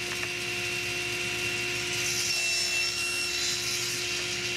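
Table saw running with its blade spinning freely, not cutting: a steady motor hum with a constant high whine and airy hiss.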